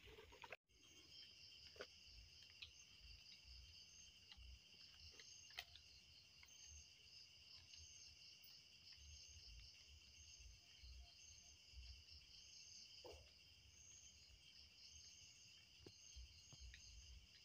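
Faint chorus of insects trilling steadily at two high pitches, with a fast pulsing in the trill. A few soft low knocks and thin clicks sound here and there.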